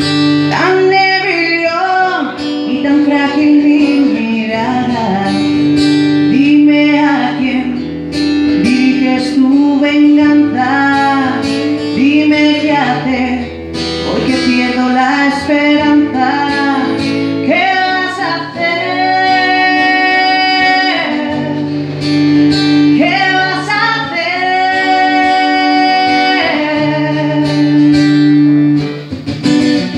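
A woman singing a song in Spanish with long held notes, accompanied by an acoustic guitar. Near the end the voice drops out and the guitar plays on alone.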